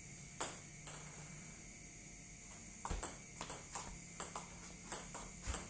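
Table tennis rally: a celluloid ping-pong ball clicking sharply off rubber bats and the tabletop. There is one louder click just after the start, then a quick run of ticks about two to three a second from about three seconds in.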